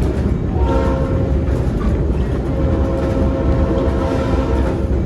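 Locomotive horn sounding for a grade crossing, heard from inside a passenger car: a shorter blast about half a second in, then a long blast that stops just before the end, part of the two-long, one-short, one-long crossing signal. Beneath it the train's steady rumble on the rails.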